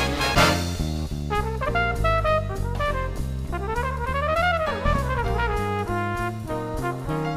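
Background music: brass-led jazz with drums, a melody line that sweeps up and back down about four seconds in.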